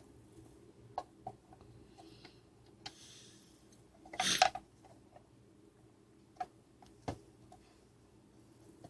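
Scattered clicks and knocks of a plastic device housing being handled and pried apart, with a brief scrape and a louder crackling snap about four seconds in.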